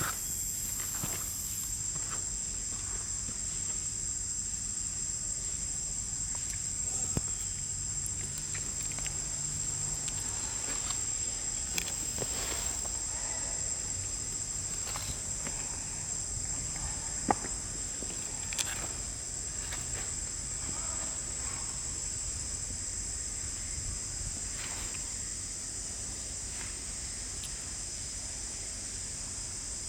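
A steady high-pitched insect chorus, with a few scattered clicks and taps, the sharpest about 17 seconds in.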